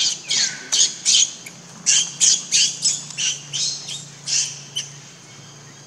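Infant macaque screaming in a rapid run of short, high-pitched shrieks, two or three a second, one of them sliding down in pitch, stopping about five seconds in; a distress call while an adult female handles it.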